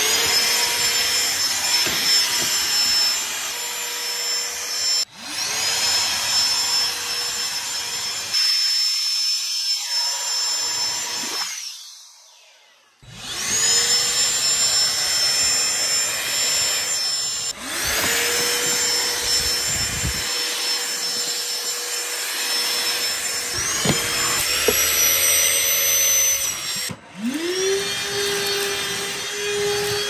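Dyson DC16 (Root 6) cordless handheld vacuum running, a steady high motor whine over a rushing suction hiss. It winds down and goes quiet around the middle, then starts again with a quick rising whine, and spins up once more near the end.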